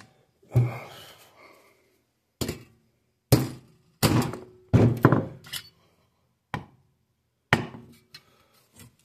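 Hammer blows on a steel percussion-cap punch and die, punching and forming a cap from 0.004-inch copper sheet: about nine sharp knocks at uneven intervals, several in quick succession in the middle, some with a brief metallic ring.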